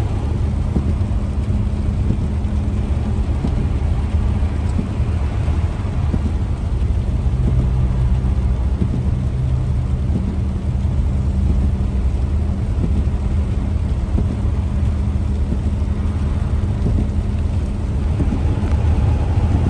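Steady low drone of a running vehicle's engine with road noise, heard from inside the cabin.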